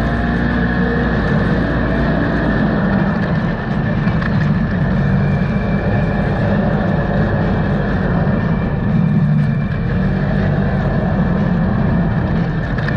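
Side-by-side UTV engine running under changing throttle while driving over sand dunes, its note rising and falling, with steady road and wind noise.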